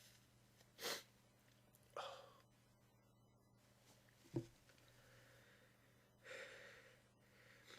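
A person's quiet, breathy gasping inhales, about a second, two seconds and six and a half seconds in, with one brief, louder snort-like sniff about four seconds in: the catching breaths of someone between sneezes.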